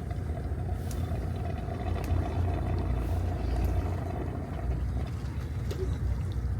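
Fishing boat's engine running steadily, a low drone with a faint steady whine on top that fades out about five seconds in.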